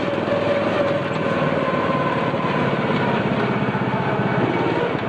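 Small engine of a ride-on park car running steadily under way, a rapid even pulsing with a whine in it, as the car drives along its guided track.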